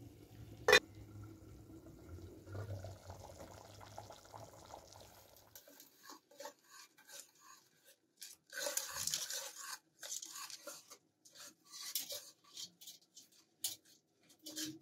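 Soaked tamarind being worked in water with a wire whisk in a metal bowl: wet sloshing and squelching in uneven bursts through the second half. Before that, a low steady hum with a single sharp clink about a second in, the loudest sound.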